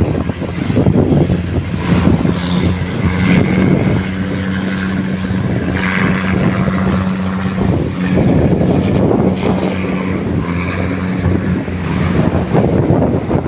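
Tugboat engine running steadily with a constant low hum while towing a loaded sand barge.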